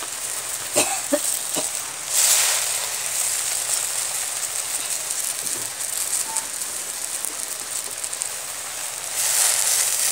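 Sunsunia (water clover) leaves frying in hot oil in a kadai: a steady sizzle. A few spatula clicks on the pan come about a second in, and the sizzle swells louder when the greens are stirred, around two seconds in and again near the end.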